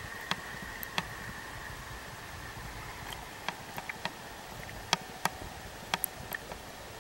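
Shallow river running over a cobble bed, heard from at and then just under the water's surface: a steady rushing hiss with sharp clicks and ticks scattered through it, the loudest about 5 s in.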